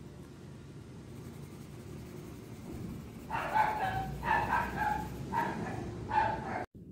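A dog barking four times, starting about halfway through, each bark short and evenly spaced.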